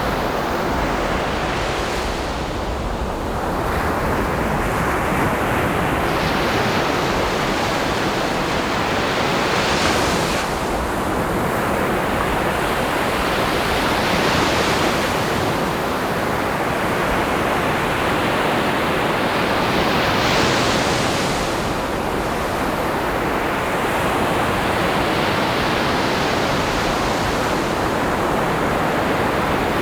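Ocean surf: waves breaking and washing ashore in a continuous rush, the hiss swelling every four to six seconds as each wave breaks.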